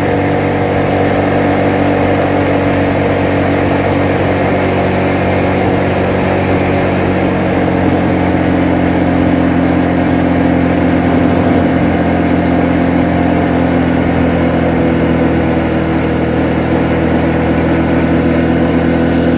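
Motorcycle engine running steadily while riding along a road, heard from on the bike.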